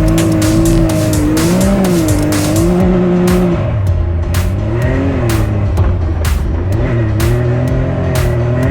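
Can-Am Maverick X3's turbocharged three-cylinder engine revving up and easing off several times under way, with a beat-driven music track over it.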